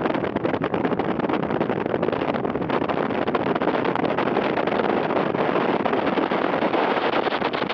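Flash-flood water rushing steadily down a desert wadi, a continuous even rush.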